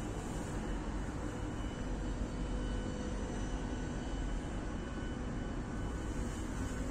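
Steady low rumble of wind on the microphone high up on a Ferris wheel, with a faint steady hum underneath.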